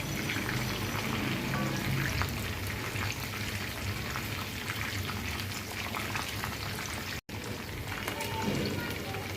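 Whole chicken deep-frying in hot oil: a dense, steady crackling sizzle, breaking off for an instant about seven seconds in.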